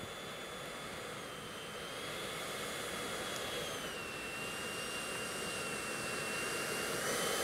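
90mm electric ducted fan of a Freewing Yak-130 RC model jet whining steadily at low power as it taxis, growing gradually louder. Its pitch steps down about four seconds in and rises again near the end.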